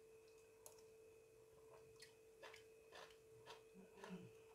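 Near silence with a faint steady tone, broken by soft small clicks of eating, a spoon and chewing, about every half second.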